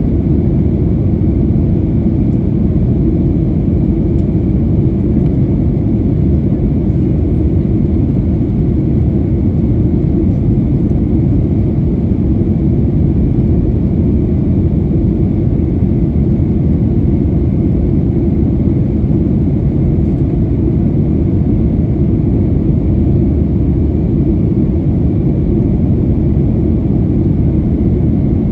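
Cabin noise inside a Boeing 737-900ER: a steady, loud low roar from its CFM56-7B turbofans and the airflow, unchanged throughout, with a faint steady higher hum on top.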